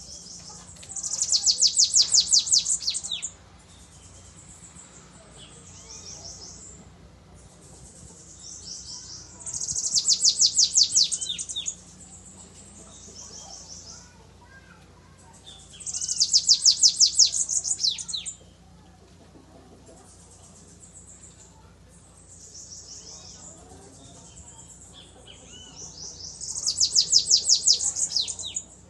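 Caged bananaquit (sibite) singing its 'belga corrido' song: four loud, high, fast trilled phrases of about two seconds each, several seconds apart, with softer chirps between.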